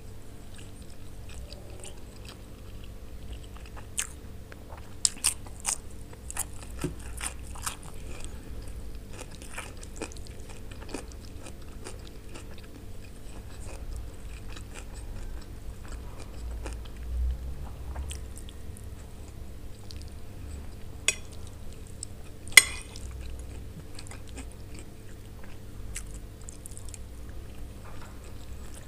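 Close-miked chewing and biting of mouthfuls of browned macaroni, with scattered sharp clicks; the loudest click comes about three-quarters of the way through.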